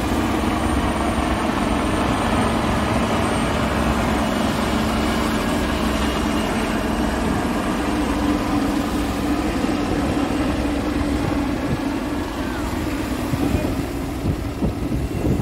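Two military helicopters flying overhead: a steady drone of their turbine engines and rotors.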